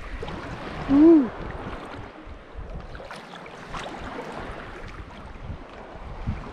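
Shallow seawater sloshing and splashing around a swimming dog, with wind on the microphone. About a second in, one short vocal sound rises and falls in pitch, louder than the water.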